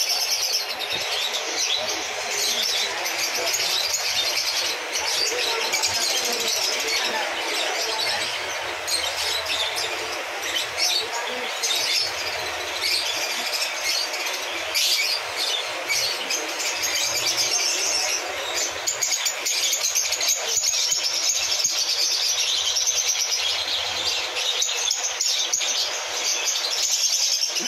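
Many caged birds chirping and twittering at once, a dense, unbroken chorus of quick high calls.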